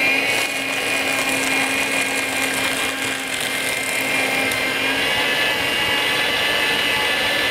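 A Bonsaii C237-B paper shredder running with a steady high-pitched whine as its cutters shred a single sheet of paper. In auto mode, feeding the sheet is what starts the motor. A lower hum drops out about five seconds in.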